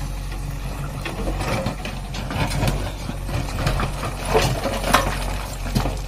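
JCB 3DX backhoe loader's diesel engine running steadily while its backhoe bucket digs into a pile of broken stone, stones knocking and scraping against the steel bucket. The clatter comes in scattered knocks, loudest around four to five seconds in.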